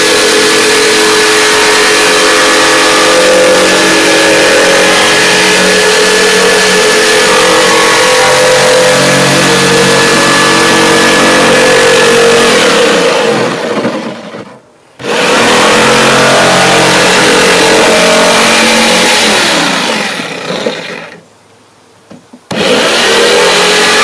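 Corded electric jigsaw cutting through the plastic lid of a Coleman cooler, its motor and blade running loudly. It stops twice, briefly a little past halfway and for about two seconds near the end, winding down each time before starting up again.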